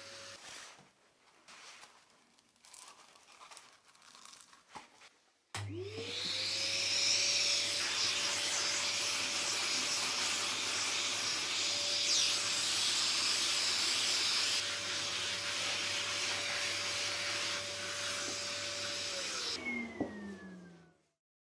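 Shop vacuum switched on a few seconds in: its motor spins up to a steady whine over a rush of air. It runs for about fourteen seconds, then is switched off with a click and the whine falls away as it winds down. Before it starts there is only faint, irregular rubbing.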